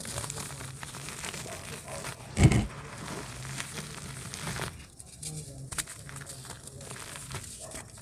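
Dry dirt clods crushed by hand, crumbling with a continuous fine crackle as loose soil and grit fall back onto the dirt floor. A single loud thump about two and a half seconds in.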